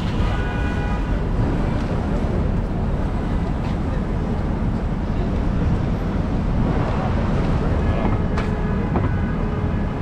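Busy city street din: steady traffic and crowd noise, with a brief horn-like tone in the first second and again about eight seconds in.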